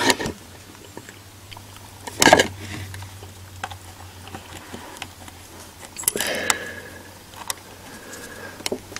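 Small metal parts being handled at a distributor's terminal post, a washer and a ring-terminal lead being fitted by hand. A few scattered clicks and scrapes, the loudest about two seconds in, over a faint steady low hum.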